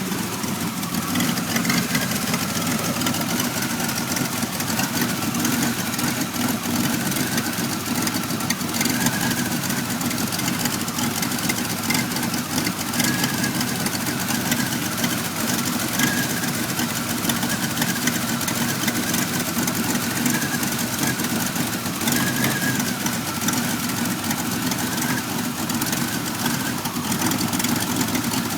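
1991 Pontiac Firebird's V6 engine idling roughly and continuously, with a faint whine that wavers in pitch now and then. The rough idle is unresolved, with trouble codes 33 and 43 still set.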